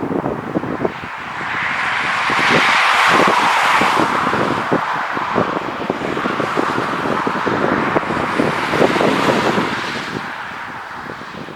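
Jet airliner engines passing close by: a broad rushing roar that swells to its peak about three seconds in, holds, and fades near the end. Wind buffets the microphone underneath.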